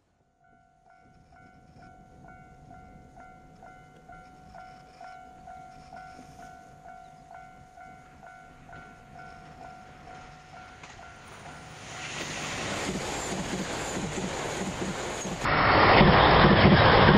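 A JR Shikoku 2000-series diesel express train approaches, its engines and wheels growing louder, while a faint ding repeats about twice a second and stops about eleven seconds in. About two seconds before the end it jumps to the train passing close by, much louder.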